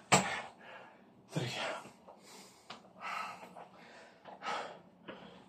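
A man breathing hard, out of breath after exertion: four heavy, noisy breaths about a second and a half apart, the first the loudest.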